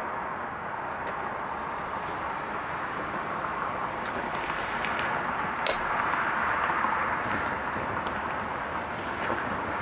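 Steady outdoor background rush like distant road traffic, swelling a little in the middle, with one sharp clink, a spoon against the bowl, a bit over halfway through. A series of faint, short high chirps comes in near the end.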